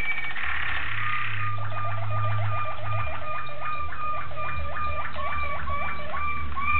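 Waterslager song canary singing: a brief watery rolling passage, then a run of repeated hollow notes, about four a second, that slow toward the end.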